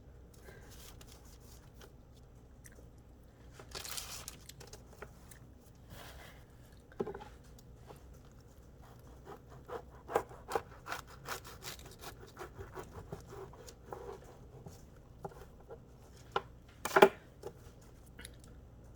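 Handling sounds of preparing a sandwich on a kitchen counter: scattered rustling, scraping and small knocks, with a louder scrape about four seconds in and another near the end.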